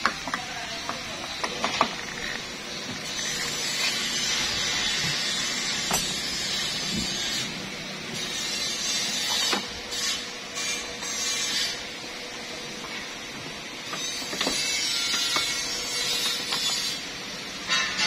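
Plastic door trim panel and power window switch housing being pressed and fitted by hand: irregular sharp clicks and snaps over a steady rustling scrape of plastic.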